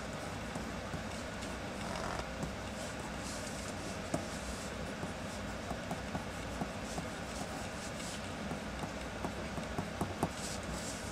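Pencil sketching on paper: short scratchy strokes and small ticks over a steady background hiss and low rumble.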